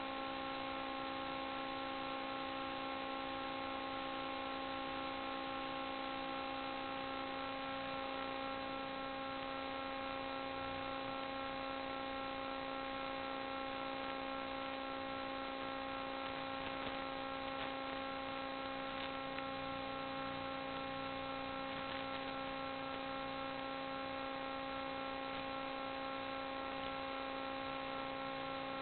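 Steady electrical hum: a constant low-pitched drone with a stack of overtones over a bed of hiss, unchanging throughout.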